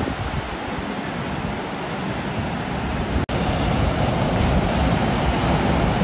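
Ocean surf breaking and washing up the shore, a steady rushing noise. It cuts out for an instant about three seconds in and comes back a little louder.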